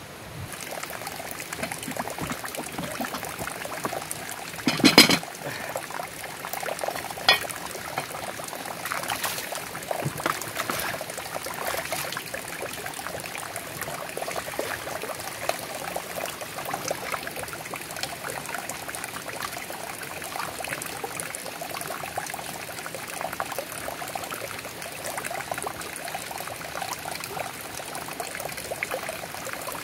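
Water running from above and splashing into a plastic basin, with rice being swished and rinsed in an aluminium pot. A sharp knock about five seconds in.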